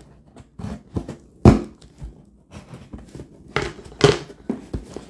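Packing tape and cardboard of a parcel being cut and torn open: a few sharp snaps and scrapes, the loudest about a second and a half in.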